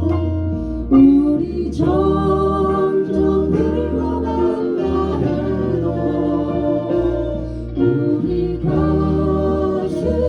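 Live music: singing over band accompaniment with guitar and a bass line that changes note about every second.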